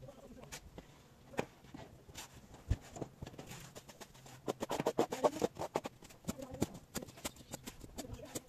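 Irregular clicks, knocks and scrapes of hand work in a metal wheelbarrow of plaster mortar, thickest about halfway through.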